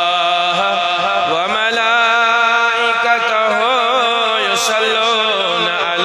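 A man's voice chanting a Quranic verse in Arabic through a microphone, in long drawn-out melodic notes. A new phrase starts about a second and a half in, and its pitch wavers in ornamented turns.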